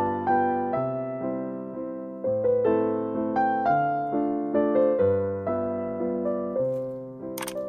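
Background music: piano playing a melody over changing chords, each note struck and fading.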